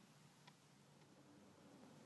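Near silence: a faint steady room hum, with a faint click of the small plastic toy plane being handled about half a second in.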